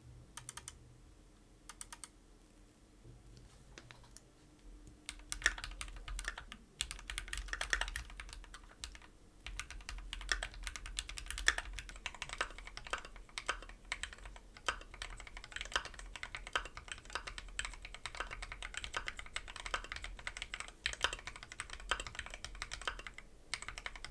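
Typing on a Keychron mechanical keyboard: a few separate key presses, then steady, fast typing from about five seconds in.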